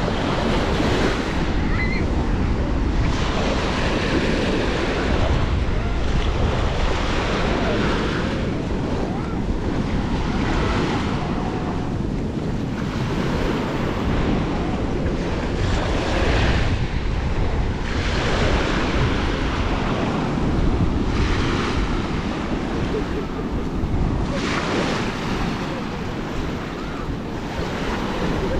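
Small waves washing up a sandy shore, swelling and easing every few seconds, with wind rumbling on the microphone.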